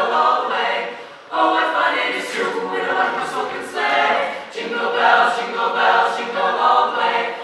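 Mixed high school jazz choir singing a cappella, with a short break between phrases about a second in.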